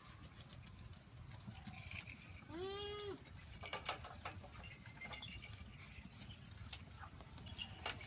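A goat bleats once, a single call of about half a second, roughly two and a half seconds in. Around it, scattered light clicks and rustles of goats tugging at and eating fresh Napier grass.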